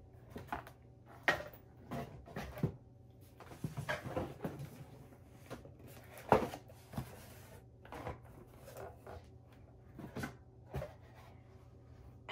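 Cardboard box being handled and opened, its flaps scraping and rustling, with a string of knocks and clatters as the empty plastic toiletry bottles inside shift and bump; the loudest knock comes about six seconds in.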